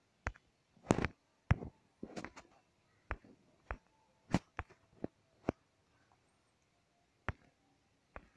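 Irregular clicks, taps and short rustles, about a dozen, spread unevenly with the loudest around one to one and a half seconds in: handling noise from working the device that runs the slideshow.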